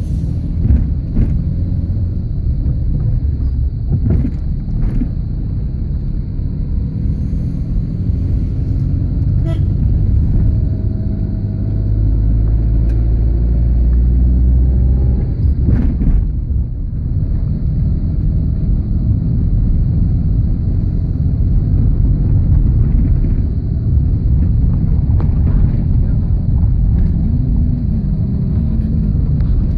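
A car driving, heard from inside the cabin: a steady low engine and tyre rumble with a few sharp knocks, heaviest for a few seconds about halfway through.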